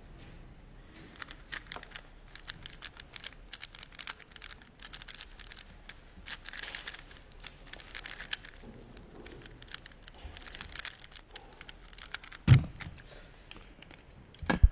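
3x3 speed cube being turned rapidly, a dense run of fast plastic clicks and rattles from the layers, starting about a second in. Near the end a sharp thump as the cube is put down and the hands slap the timer to stop it.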